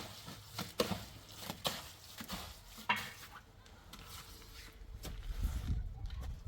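Several short sharp knocks or taps, irregularly spaced, in the first few seconds, then a low rumble building from about five seconds in.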